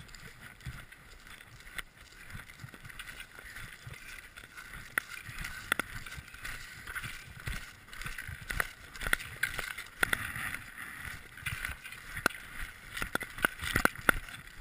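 Snowshoe footsteps crunching through deep snow, uneven and coming faster and louder toward the end, with clothing rustle.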